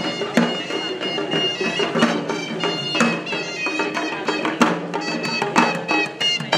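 Traditional Sri Lankan procession music: a shrill reed pipe playing a held melody over repeated drum strokes.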